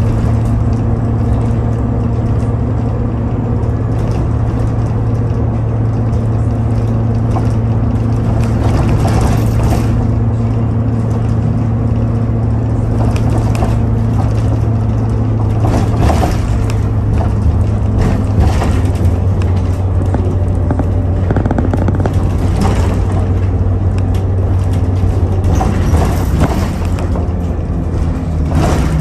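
Electric passenger train running: a steady low hum, with a short clatter every three or four seconds.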